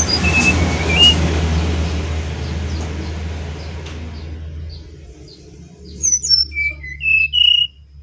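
Brown-chested jungle flycatcher singing: a few clear whistled notes about half a second in, then a louder phrase of sweet whistles rising and falling in pitch near the end. Under the first half runs a broad rumbling noise that fades away.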